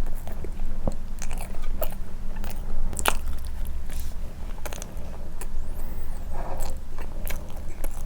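Close-miked chewing and biting of soft condensed-milk cream bread dipped in milk: irregular sharp mouth clicks and smacks, over a steady low hum.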